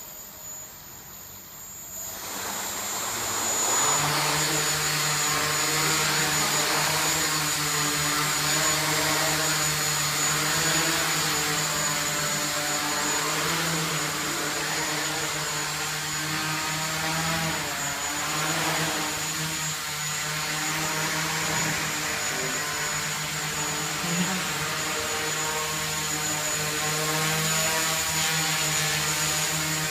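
Small quadcopter's brushless outrunner motors and propellers spinning up about two seconds in, then a steady buzzing whine as it hovers, the pitch drifting up and down as the motors adjust their speed.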